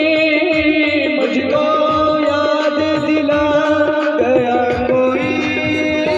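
Devotional bhajan music played live: a sustained melodic line over a hand drum beating a steady rhythm, with no vocal line.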